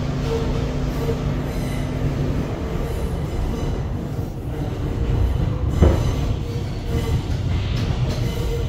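Inside an MTA R211A subway car running on the rails: a steady rumble of wheels and running gear. A low hum drops out about two and a half seconds in, and a single sharp knock comes near the six-second mark.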